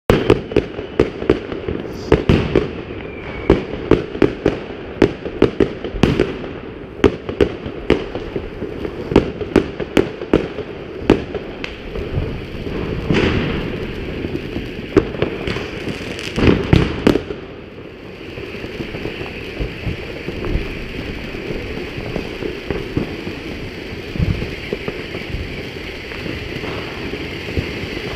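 Klasek 1500 g colour fountain firework spraying sparks, with many sharp bangs, about one or two a second, for roughly the first two thirds. After that it settles into a steady hiss with only a few pops.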